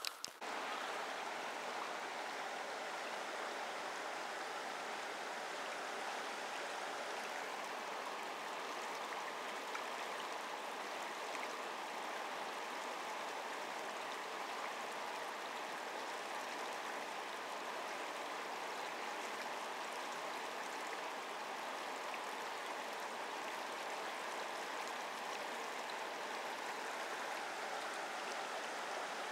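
Small forest river flowing over rocks in shallow riffles: a steady, even rush of running water that begins about half a second in.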